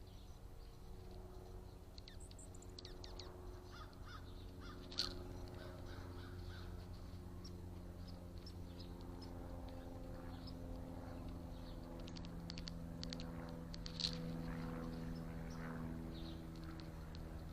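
Crows cawing in a backyard, with scattered smaller bird calls and ticks. A steady low hum runs underneath, and two sharp clicks stand out, about five seconds in and near the fourteen-second mark.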